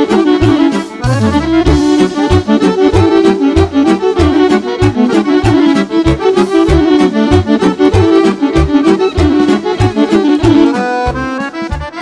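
Live Balkan folk dance music: a Guerrini chromatic button accordion plays a fast, busy melody over a steady, quick drum and keyboard beat, with alto saxophone alongside.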